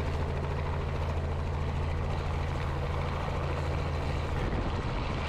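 Robinson helicopter flying low on a slow, steep approach to land: a steady low drone of rotor and engine over a broad rushing hiss.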